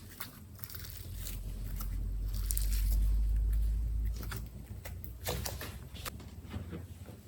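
Slime being squished and poked by hand, with short sticky crackles and clicks, a few sharper pops in the second half. A low rumble swells and fades in the first half.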